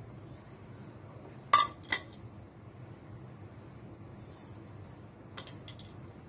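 Dishware clinking: two sharp, ringing clinks about a second and a half in, then a few fainter taps near the end.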